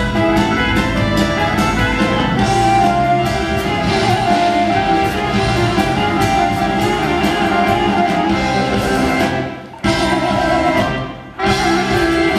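Live progressive rock band playing loudly in a full, dense passage, then breaking into abrupt stops: the music cuts out sharply for a moment about ten seconds in and again a second later.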